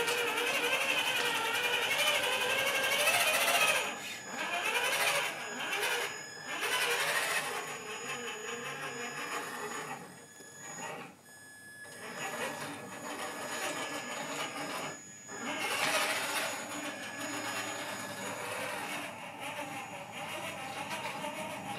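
Electric motor and gearbox of a Traxxas TRX-4 Mercedes G500 RC scale crawler whining, the pitch wavering up and down with the throttle. It pauses briefly about ten seconds in and again about fifteen seconds in.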